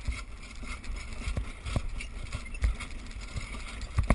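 Pair of horses pulling a driving carriage at speed over sand: dull, irregular hoofbeats with the rattle of the carriage and harness, and a sharp click near the end.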